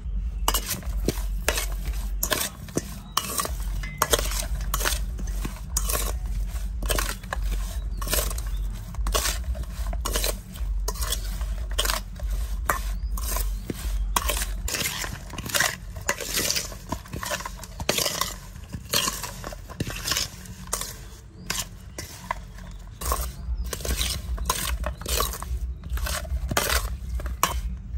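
Chicken feet and seasonings being stirred and tossed in a stainless steel mixing bowl: dense, irregular clinks, knocks and scrapes against the metal bowl.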